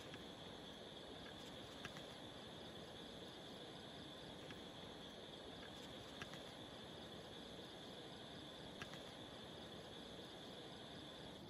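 Night insects chirring faintly in one steady high-pitched note, with a few faint scattered clicks.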